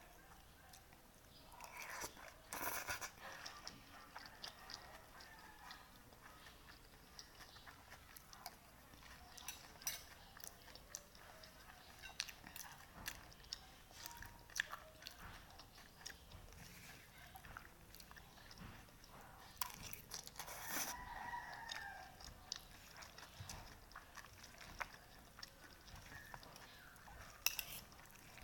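A person eating pansit batil patong noodles close to the microphone: quiet chewing and biting, with scattered small clicks throughout.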